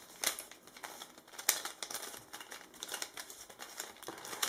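Sengso Halpern-Meier Pyraminx mirror puzzle being turned by hand: a run of irregular plastic clicks and rattles as its layers are twisted.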